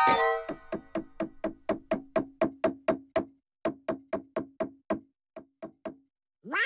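Cartoon soundtrack: a loud hit, then a run of short wood-block-like taps at about four a second, thinning out and dying away about six seconds in.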